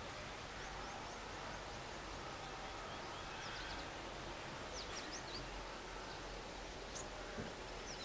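Short, high, thin bird chirps, scattered in a few quick little groups a couple of seconds apart, over a steady outdoor background hiss.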